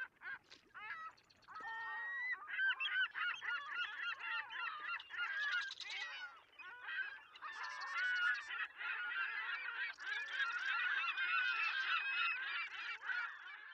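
A flock of herring gulls calling: many short calls rising and falling in pitch and overlapping one another. The calls are sparse at first and become a dense chorus from about two seconds in.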